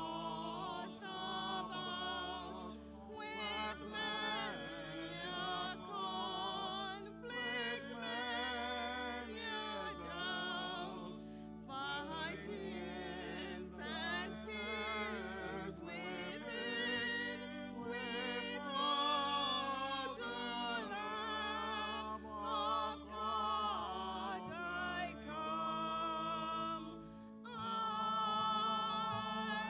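A sung hymn: a voice singing with wide vibrato over sustained organ chords and held bass notes.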